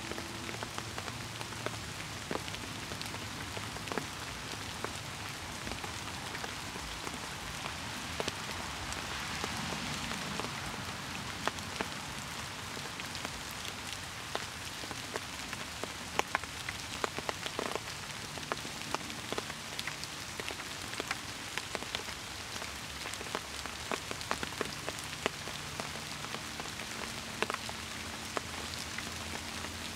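Steady rain falling, a constant hiss with many single drops landing close by as sharp ticks.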